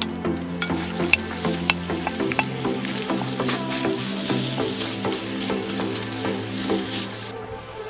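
Sliced red onions sizzling as they hit hot oil in a steel wok and are stirred and scraped with a wooden spatula. The sizzling starts about half a second in and cuts off near the end, with background music underneath.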